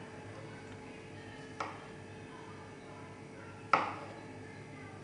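Kitchen knife cutting through cooked beetroot and tapping down on a cutting board: two sharp knocks, a light one about a second and a half in and a louder one near the end.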